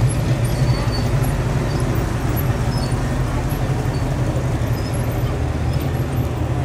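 V8 engine of a first-generation Chevrolet Camaro running with a low, steady rumble as the car rolls slowly past, with no revving.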